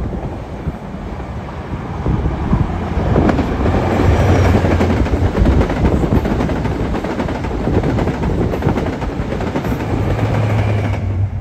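Diesel High Speed Train passing at speed: a steady low engine drone from the Class 43 power cars over the rush of wheels on the rails. It swells about three seconds in as the leading power car passes, then the drone comes up again near the end as the rear power car goes by.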